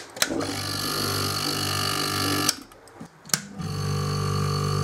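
Air-conditioner compressor in a chipboard enclosure, switched on with a rocker-switch click and running with a steady electric hum. It cuts off suddenly after about two seconds, then clicks on and runs again.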